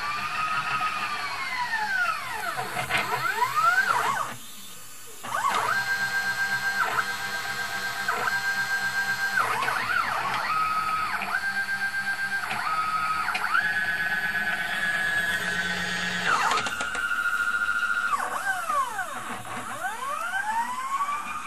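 Stepper motors of a homemade CNC machine's X and Y axes driving the pen head: whining tones that sweep up and down in pitch as moves speed up and slow down, and hold steady pitches during straight runs, changing pitch every second or two. A short pause about four and a half seconds in.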